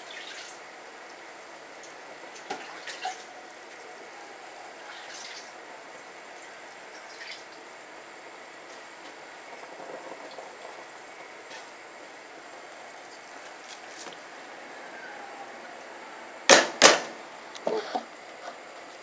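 Pot of hot water on a stove, bubbling faintly with scattered small pops. A little before the end come two sharp knocks in quick succession, then a few lighter clicks.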